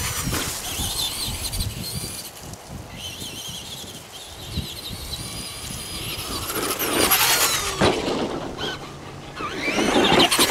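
Traxxas Bigfoot RC monster truck's brushed electric motor and gears whining, rising and falling in pitch as it speeds up and slows, with its tyres on grass and dirt. It is loudest at the start, about seven seconds in and near the end, and quieter in between.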